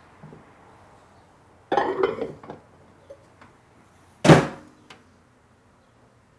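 A plate-covered glass bowl set onto a microwave's glass turntable with a short run of clinks about two seconds in, then the microwave door shut with a sharp thunk a little after four seconds.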